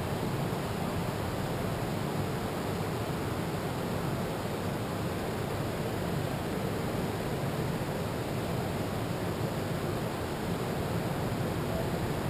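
Ocean surf breaking on a beach, heard as a steady, even rushing with no separate sounds standing out.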